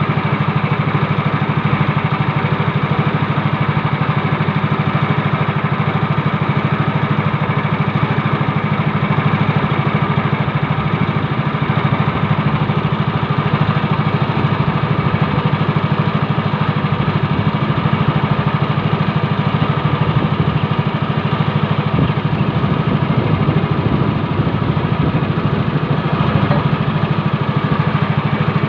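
Small engine running steadily at an even speed, with no rise or fall in pitch.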